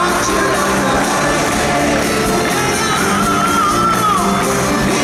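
Live unplugged rock performance: acoustic guitars, a string section and several singers playing together in a large hall. A high note wavers and is held from about halfway through until a little past four seconds.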